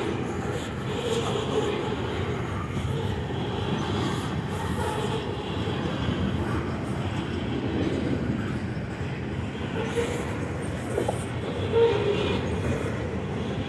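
Freight train of tank cars rolling steadily past, a continuous rumble and clatter of steel wheels on the rails, with a sharper knock about twelve seconds in.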